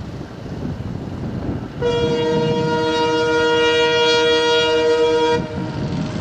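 Diesel locomotive horn sounding one long steady blast of about three and a half seconds, starting about two seconds in, over the steady rumble of the train running.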